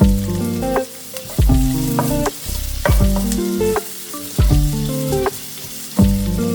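Food sizzling as it fries in hot oil in a pan, under background music with a deep, regular beat and held bass notes.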